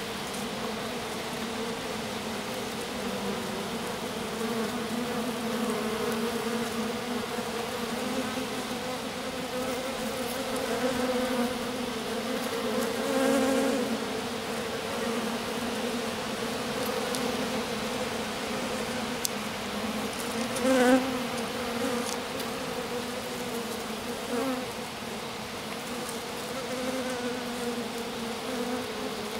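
Honeybees of a small swarm clustered in the grass buzzing: a steady hum with short swells where a bee flies close, about halfway through and again about two-thirds of the way through.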